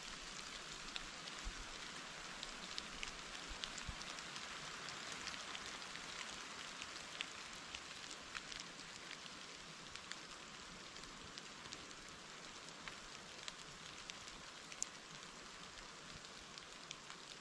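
Faint steady outdoor hiss in snowy woods, with many small scattered ticks throughout, slowly fading a little toward the end.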